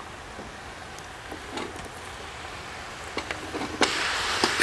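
Wet diced potatoes tipped off a steel plate into a karahi of hot fried masala, with a few knocks and clinks of the plate and steel ladle. A loud sizzle rises suddenly about four seconds in as the potatoes are stirred into the hot oil.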